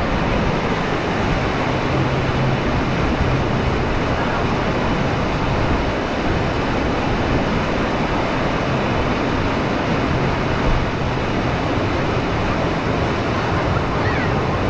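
Constant rush of churning white water pouring over an artificial sheet-wave bodyboarding machine. It is loud and steady throughout, with a faint low hum under it.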